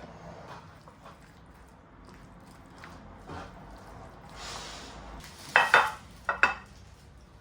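Kitchenware being handled: soft scattered clicks and a brief hiss, then a few sharp clinks of dishes with short ringing about five and a half seconds in.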